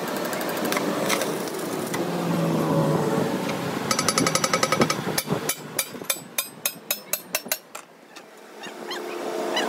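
Steel being hammered on a truck axle beam: a quick rattle of light metallic taps about four seconds in, then a run of sharp strikes, about four or five a second, that stops about eight seconds in, over steady workshop noise.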